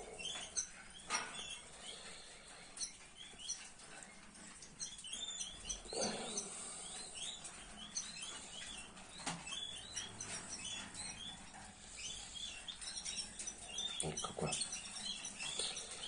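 Canary nestlings peeping from the nest: many short, high, rapid chirps, faint throughout. A few soft knocks from handling the chick come in between.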